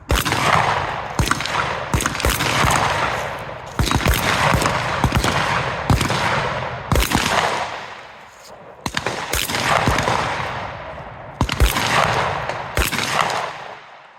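Shotgun fired repeatedly during a timed course of fire, about a dozen sharp shots at uneven gaps of roughly half a second to two seconds, each followed by a long ringing echo.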